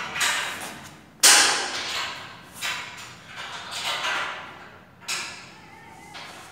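A series of about five sudden knocks or clunks, each trailing off over about a second, with creaking mechanical noise between them.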